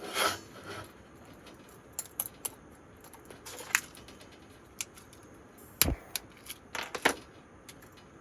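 Small objects being handled: scattered clicks and clinks, with a louder knock about six seconds in and another cluster of clinks about a second later, over a faint steady hiss.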